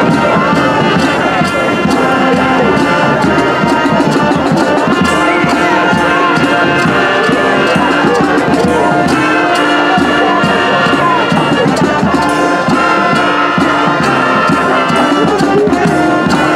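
High school marching band playing a brass-led piece with sustained chords, the horn line playing in step under a conductor.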